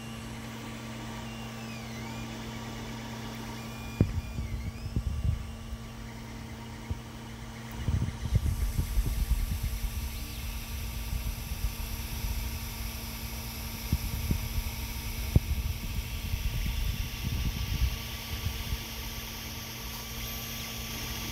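FDM 3D printer running: a steady hum from its fans and stepper motors, with a few faint rising and falling motor whines in the first five seconds. Irregular low knocks and rustles come in about four seconds in and grow busier from about eight seconds.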